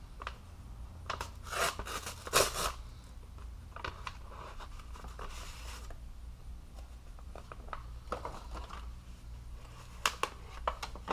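A foil mailer package and the paper sheets inside it being opened and handled: scattered crinkling and rustling with sharp clicks, and a longer tearing sound about five seconds in.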